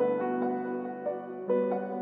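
Soft, slow instrumental background music built on sustained keyboard chords, with a new chord coming in about halfway through.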